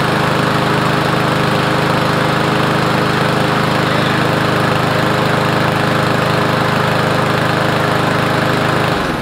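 Riding lawn mower engine running steadily on its own after a carburetor cleaning, a sign the fuel starvation that had it running only on the primer is cured. It is cut off near the end.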